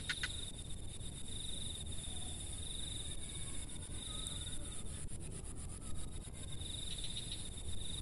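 Insects trilling steadily in a high, fast pulse, breaking off briefly twice, over a constant higher hiss and a low outdoor rumble. A couple of sharp clicks sound right at the start.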